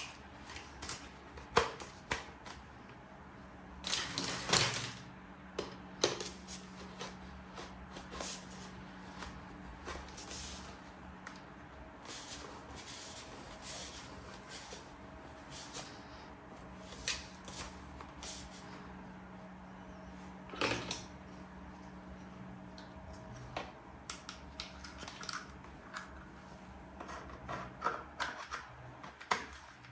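Plastic toy parts and packaging being handled: irregular clicks, taps and short rustles, with a louder cluster about four seconds in and another around twenty seconds, over a faint steady hum.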